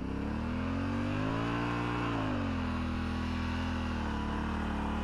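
Adventure motorcycle's parallel-twin engine running: the revs climb for about two seconds, drop back, then hold steady.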